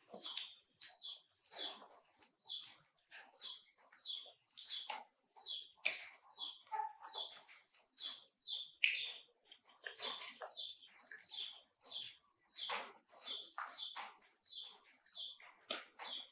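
Short high chirps repeated evenly, about three every two seconds, over rustling and light clicks as macaques pick at and eat from green lotus seed pods in a wicker basket.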